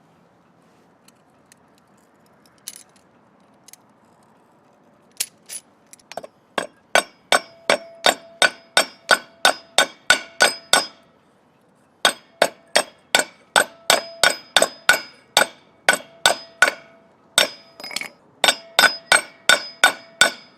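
Hammer blows forging a red-hot steel drill bit, metal on metal with a ringing clang to each strike. The blows start about a quarter of the way in and come steadily at two to three a second, with one short pause about midway.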